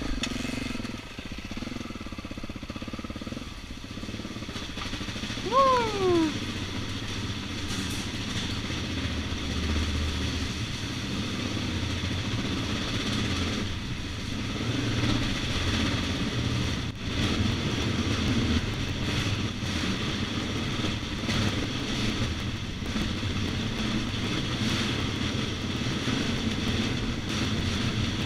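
Dirt bike engine running at low revs as the bike rolls over rough ground, with a steady rattle and rumble throughout. About six seconds in, a short loud sound falls in pitch.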